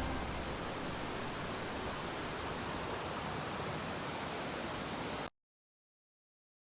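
Steady hiss-like rushing noise, even across low and high pitches, which cuts off abruptly a little over five seconds in, leaving dead silence.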